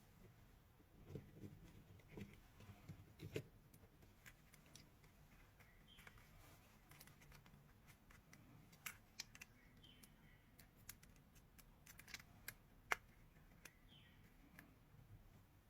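Faint, scattered clicks and light taps of small plastic and metal parts being handled as an electric shaver's internals, with a freshly fitted battery cell, are set back into place. A few soft knocks come in the first few seconds, then sharper single clicks later.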